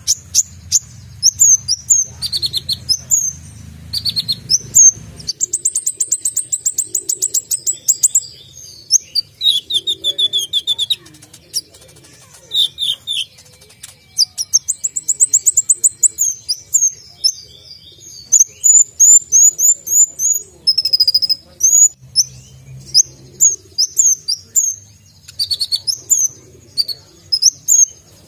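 Male Van Hasselt's sunbird (kolibri ninja) singing continuously. It gives a stream of high, sharp chirps and twitters, broken by fast rattling trills and quick bursts of repeated notes, the rapid 'shots' and borrowed phrases prized in a singing sunbird.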